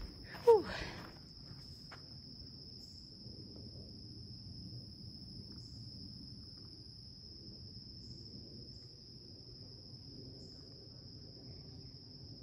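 A steady, high-pitched insect trill over a faint low background rumble. About half a second in there is one short, loud, falling-pitched sound.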